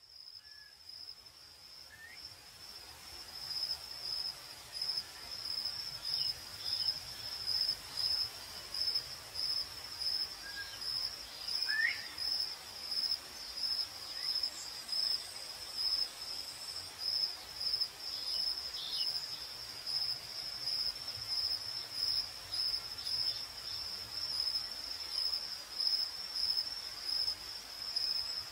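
Crickets chirping in a steady, even pulsing rhythm, fading in over the first few seconds, with a few faint short calls scattered through.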